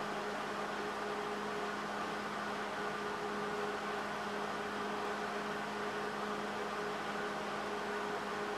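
Steady machine hum with an even hiss behind it, unchanging throughout.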